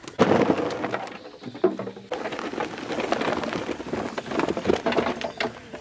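Many chopped bottle gourd cubes tumbling and clattering against each other in a metal bowl: a dense patter of small knocks in two spells, with a short lull between them.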